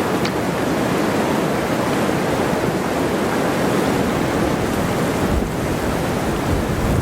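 Snowstorm wind blowing across the microphone: a steady, loud rushing noise with low rumbling buffets.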